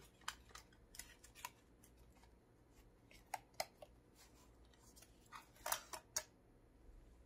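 Faint handling of a cardboard perfume box: scattered soft clicks and scrapes, with a louder run of scraping near the end as the inner box slides out of its sleeve.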